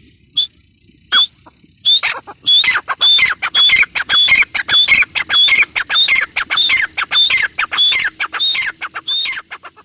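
Grey francolin calling: two single notes, then a steady run of repeated loud calls at about two a second that goes on until just before the end.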